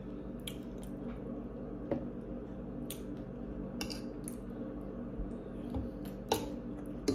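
Quiet eating sounds: a metal fork clicking and scraping against a ceramic bowl a handful of times, with a finger lick near the end, over a steady low hum.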